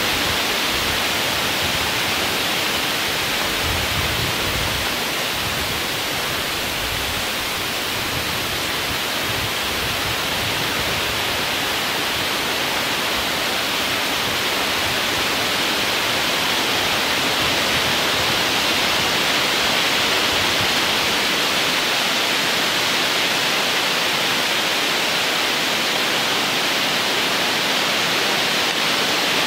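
Steady loud hiss of wind through the woods, with soft low rumbles of gusts on the microphone a few seconds in.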